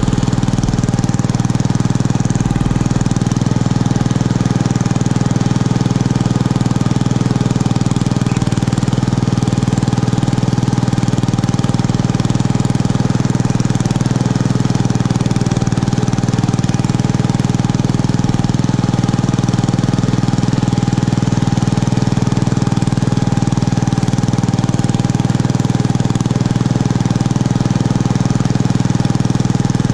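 Homemade garden tractor's 6.5 hp single-cylinder engine running steadily and loudly under load as the tractor pushes wet snow with its front blade.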